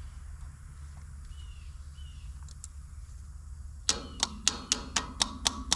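Hammer blows on metal: about eight quick, ringing strikes at roughly four a second, starting about four seconds in, knocking at a stuck part to get it out.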